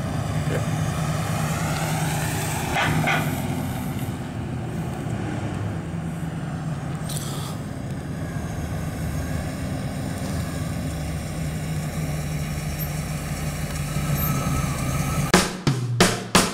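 Fuel-injected 350 cubic-inch small-block V8 of a 1959 Chevrolet Apache 3100 pickup running at low speed as the truck drives past, a steady engine drone that shifts a little in pitch. Near the end, music with sharp drum hits comes in.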